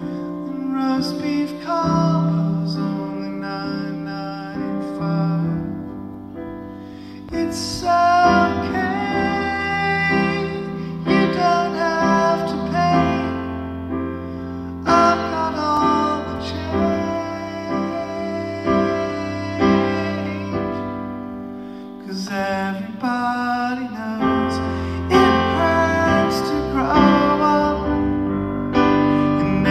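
Grand piano played with a man singing over it, a live solo performance of a pop ballad. Sung phrases come and go over the steady piano chords.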